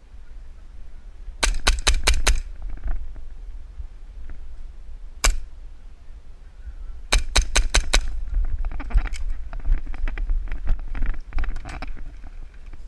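Airsoft guns firing: a quick string of about six sharp cracks, a single shot, another string of about six, then scattered fainter shots.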